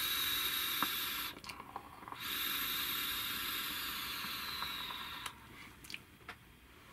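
Airflow noise of an E-Phoenix Hurricane 1.4 NG rebuildable tank atomizer during a direct-lung draw with the air pin and air holes fully open: a steady hiss of air rushing through the airflow holes, with a faint high whistle. It breaks off briefly about a second in, then resumes for about three seconds and fades. At full airflow the tank is on the noisier side.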